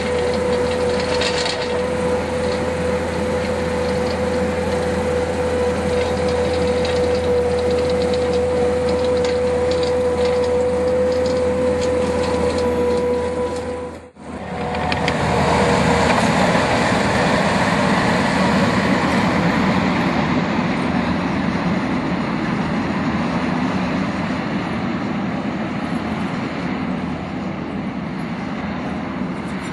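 Skid steer loader running while working a hydraulic Harley box rake. A steady whine sounds over the machine until a sudden break about halfway through. After the break the machine keeps running with a broader, noisier sound and no whine.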